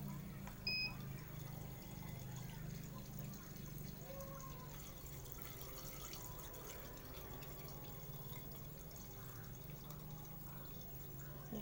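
Polytron Zero Matic washing machine gives one short beep about a second in, then water runs in faintly as the drum fills, over a steady low hum.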